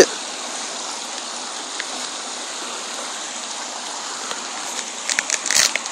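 Steady rush of running floodwater, with a few short clicks and rustles of handling near the end.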